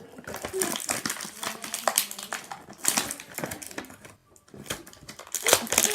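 Plastic toy packaging being handled: quick, irregular crackles and clicks as an action figure is worked out of its blister pack, pausing briefly about four seconds in.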